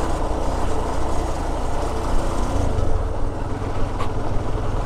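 Motorcycle engine running steadily at low speed while riding a dirt road, a low hum with road and wind noise over it.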